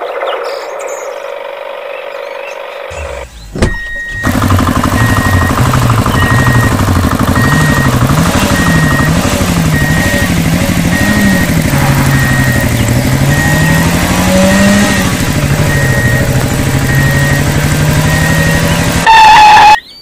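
Tractor engine starting up about four seconds in and then running, its pitch rising and falling as it revs. A loud horn honk near the end.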